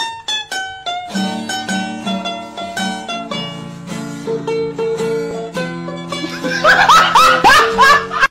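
Background music: a plucked-string melody, with a run of short, quick rising slides near the end.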